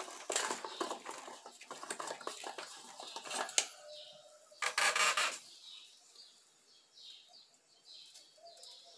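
Rustling and clicking of cast-net twine and a netting needle being handled, with a sharp click about three and a half seconds in and a louder burst of rustling around five seconds. After that it goes quieter, leaving faint, repeated bird chirps.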